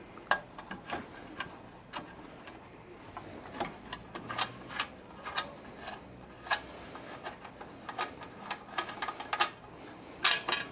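Irregular small metallic clicks and clinks of nuts and bolts being worked loose by hand from a tiller's steel handle bracket, with a cluster of louder clinks near the end.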